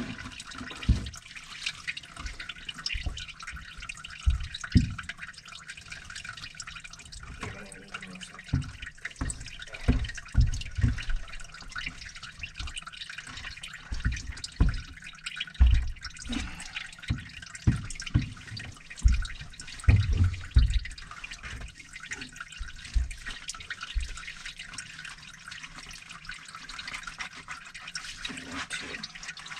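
Water running and dripping, a steady hiss, broken by many irregular dull thumps and knocks as drain-cleaning equipment and a pan of sludge are handled at the sink.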